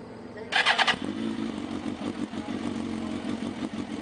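2003 Suzuki GSX-R1000's inline-four engine, breathing through an aftermarket Two Brothers exhaust, cranks and catches about half a second in with a short sharp clatter. It then settles into a steady idle.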